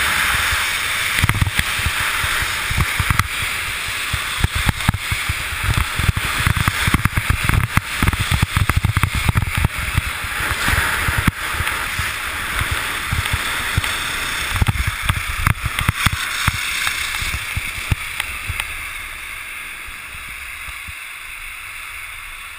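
Wind buffeting the camera microphone over the hiss and scrape of edges sliding on packed snow during a fast downhill run. Irregular low gusts come and go, and it all grows quieter after about eighteen seconds as the descent slows.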